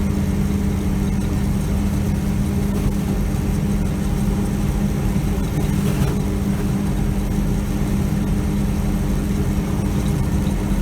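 John Deere 3300 combine's engine running with a steady drone, unchanged throughout.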